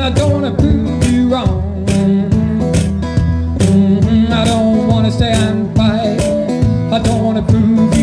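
Blues played on a resonator guitar, strummed to a steady beat with bending melody notes over it.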